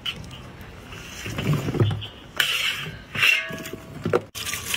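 Metal ladle scooping blanched bamboo shoots out of a wok of water: water sloshing and dripping off the ladle as the shoots are tipped into a wicker basket, three or four scoops one after another.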